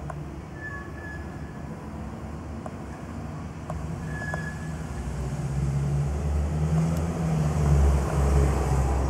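Low rumble of a vehicle passing outside, growing louder from about four seconds in and loudest near the end.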